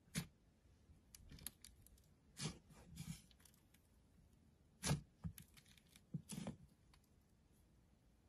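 Fingers squishing and stretching a thick clay-like slime with sprinkles, giving soft short crackles and tearing sounds at irregular intervals, the loudest about five seconds in.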